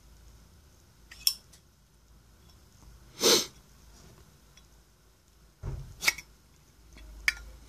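Sharp metal clicks from a sterling silver Zippo lighter being handled, three of them a few seconds apart. A short noisy burst between the first two is the loudest sound, and a dull thump comes just before the second.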